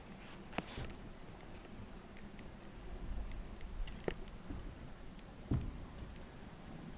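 Spinning reel clicking while a hooked fish is played: scattered sharp ticks at an uneven pace.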